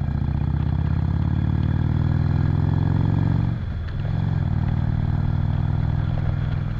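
Cruiser motorcycle engine pulling under acceleration as heard from the saddle, its pitch rising for about three and a half seconds. It then drops sharply at a gear change and pulls on steadily in the next gear.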